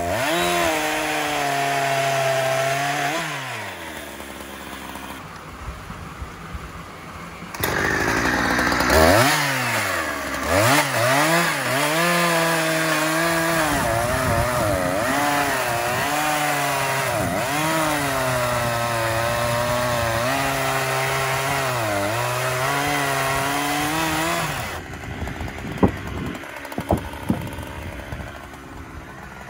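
Husqvarna 365 X-Torq two-stroke chainsaw cutting through beech at full throttle, its pitch wavering as the chain bites into the wood. It drops to idle a few seconds in, revs back up into a long cut, and falls back to idle near the end, with a few sharp knocks.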